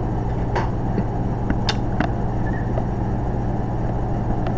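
A steady low hum, with a few faint clicks over it.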